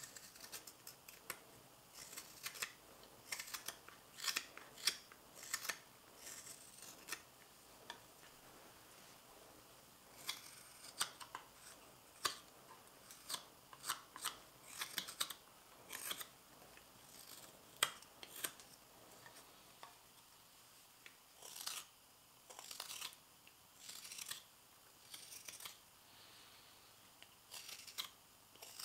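Hand carving knives, a hook-shaped spoon knife and a straight carving knife, slicing thin shavings from a fresh, dense maple spoon as it is finished: short crisp cuts, often several in quick succession, with brief pauses between runs of strokes.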